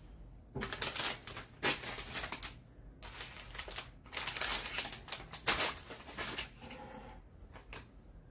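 Several bursts of rustling and crinkling close to the microphone, as of something being handled, in four clusters over about six seconds.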